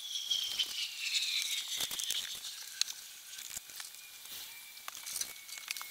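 Hydrogen peroxide foam fizzing on vinyl boat upholstery: faint, scattered crackling and popping. A thin high whistle slowly falls in pitch during the first two seconds.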